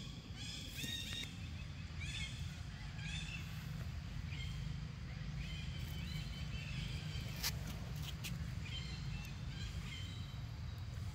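Short, high-pitched animal calls repeating every second or so over a steady low rumble, with a single sharp click about halfway through.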